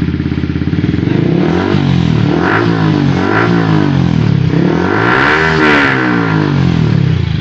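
Yamaha R15 V3's 155 cc single-cylinder engine revving through a newly fitted aftermarket slip-on exhaust. The throttle is blipped up and down several times, with the highest rev about five and a half seconds in.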